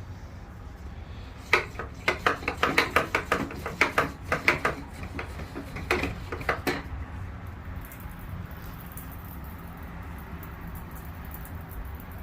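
Small hand sprayer being worked to pre-spray cleaning agent onto tile grout: a quick run of plastic clacking strokes, about three a second, for around five seconds, then faint, soft, high hissing.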